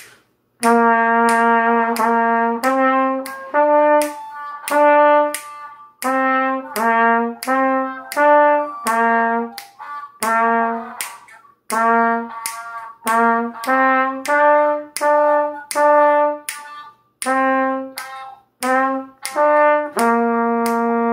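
Trumpet playing a simple beginner practice melody: short, separated notes stepping among a few neighbouring low pitches, with a longer held low note near the end.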